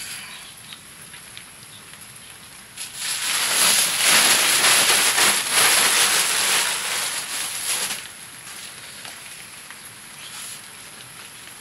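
Cooking fire crackling with scattered small pops. About three seconds in, a loud hissing rush starts and holds for about five seconds, then drops back to the crackling.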